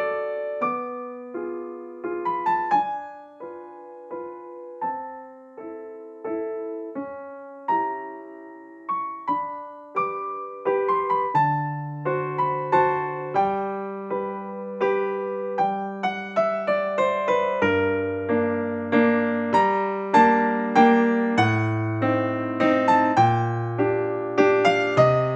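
Background music: a gentle piano or electric-piano tune of struck notes, each one fading away, with lower bass notes joining about halfway through.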